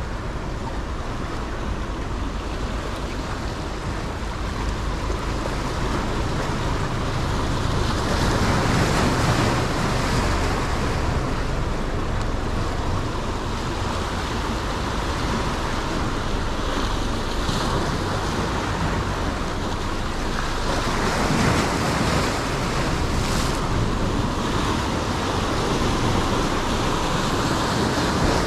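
Ocean surf washing in and breaking against the boulders of a rock jetty, swelling louder about eight seconds in and again a little past twenty seconds, with a low rumble of wind on the microphone.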